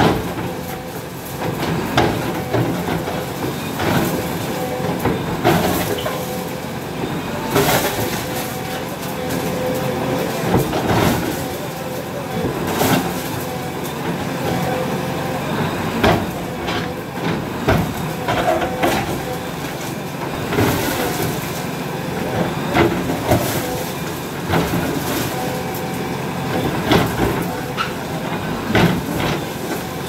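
JCB 3DX backhoe loader's diesel engine running under load, with repeated sharp knocks and clanks at irregular intervals as its backhoe bucket strikes and breaks the brick walls.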